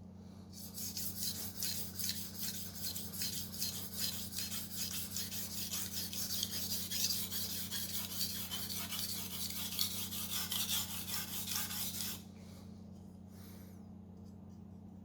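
Steel knife blade stroked back and forth on a water-wetted sharpening stone in quick, even scraping strokes, which stop about twelve seconds in. The strokes come while the sharpener is still working to raise a burr along the edge up to the tip.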